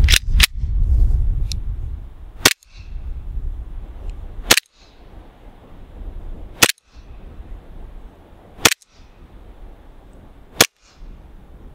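KWA Beretta M9 gas blowback airsoft pistol firing single shots into a chronograph, about six sharp pops roughly two seconds apart. Each shot reads at about 80 metres a second.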